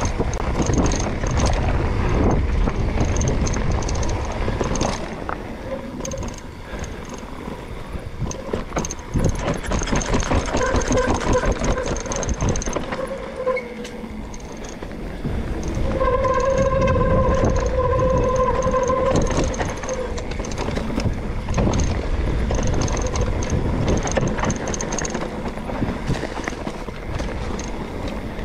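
Mountain bike riding downhill on a dirt trail: tyres rolling over dirt and dry leaves, with the bike rattling over bumps and wind rumbling on the microphone. A steady whine comes in twice, for a few seconds each.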